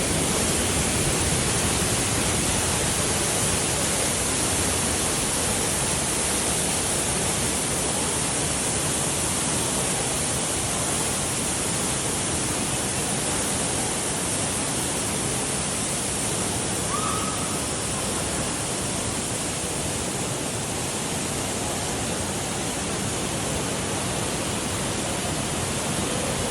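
Waterfall rushing in a steady, loud roar of falling water.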